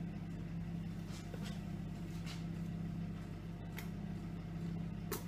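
Steady low appliance hum, with a few faint clicks and taps as a baking powder container is opened and handled.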